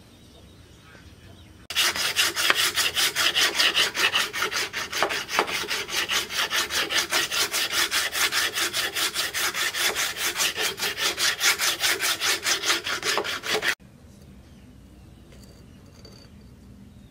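Wooden axe handle being sanded by hand with an abrasive: fast back-and-forth rubbing strokes, about five a second. It starts suddenly a couple of seconds in and cuts off abruptly near the end.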